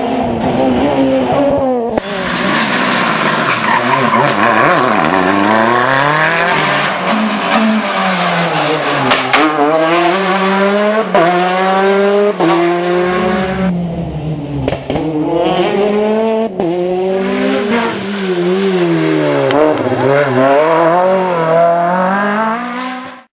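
Rally car engine revving hard, its pitch climbing and dropping again and again through gear changes and lifts, with a couple of short breaks partway through. It cuts off abruptly at the end.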